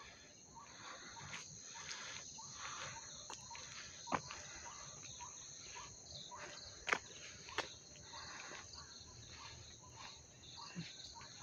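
Faint early-morning rural ambience: a steady high insect trill of crickets, with scattered short chirps and three sharp clicks.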